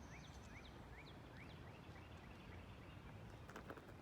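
Faint outdoor ambience with a bird repeating short rising whistled notes, about two a second. A few soft clicks come near the end.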